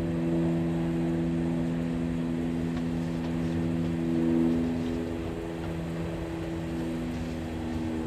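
A steady engine or motor drone: a low hum of several held tones that swells slightly about four seconds in.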